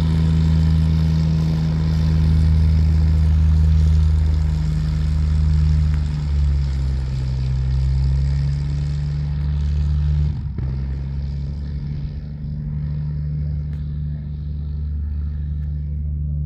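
Cessna 180A's Continental six-cylinder engine and propeller running steadily at high power, with a brief dip about ten seconds in, after which it runs on slightly quieter.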